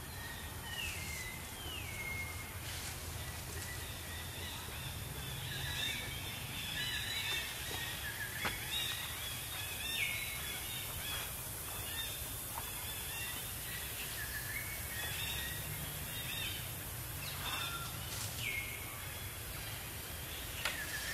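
High-pitched wild animal calls in forest: many short repeated chirps, with a few falling whistles, three in all, and occasional sharp snaps.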